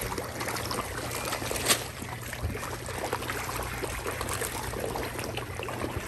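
Constant splashing and slurping of water as a dense crowd of large fish thrash at the surface, feeding on popcorn, with one sharp click about two seconds in.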